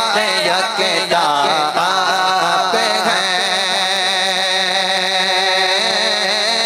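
A man's solo voice sings a naat into a microphone, wordless melodic runs at first, then one long held note with a slight vibrato from about three seconds in.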